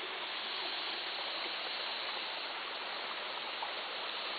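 Steady, even rushing noise of outdoor background ambience, with no distinct events.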